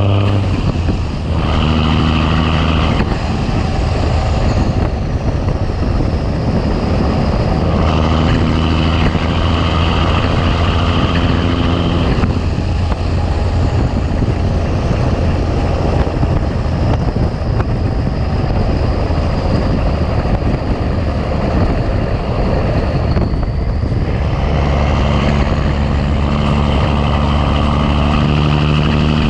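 Big Cam Cummins inline-six diesel in a 1986 Ford LT9000 truck running on the road under load. Its low drone comes and goes in strength: strongest at the start, again about eight to twelve seconds in, and over the last few seconds.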